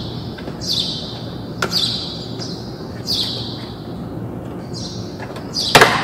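Plastic steering column trim cover on a 2002 Trailblazer being worked into place by hand, with a light click about a second and a half in and a sharp snap near the end as it seats. High chirps repeat in the background about once a second.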